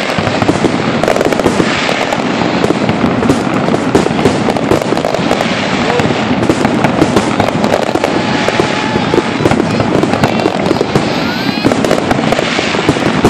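Fireworks crackling and popping in a dense, continuous barrage of sharp cracks, with spectators' voices mixed in.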